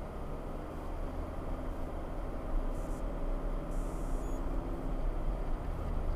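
A car driving: steady engine and road rumble heard from inside the vehicle, with a low engine hum.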